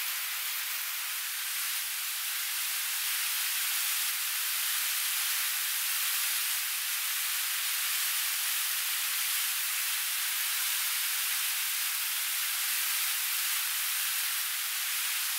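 Battered banana fritters deep-frying in hot oil, sizzling with a steady high hiss.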